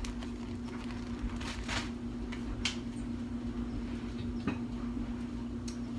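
Kitchen handling noises: a few brief rustles and knocks as food packaging and items on the counter are handled, the sharpest about two and a half and four and a half seconds in, over a steady low hum.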